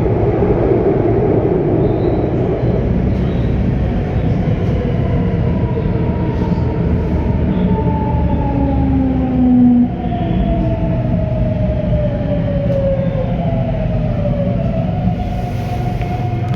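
Madrid Metro 9400-subseries Ansaldobreda electric train's traction drive under 1500 V, heard from on board: a steady low running rumble with an electric inverter-motor whine whose tones glide slowly downward, then hold a steady pitch near the end.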